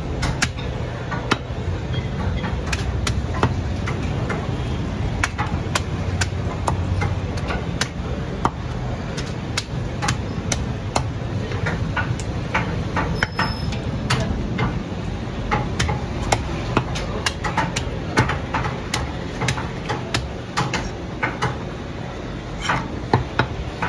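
A heavy meat cleaver chopping goat head meat on a wooden stump block: a quick, uneven run of sharp knocks, about two a second, over a steady low rumble.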